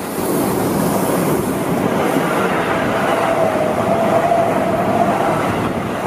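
Seibu 9000 series electric commuter train passing at close range: the steady running noise of its wheels on the rails, with a steady high whining tone through it that is loudest in the middle few seconds.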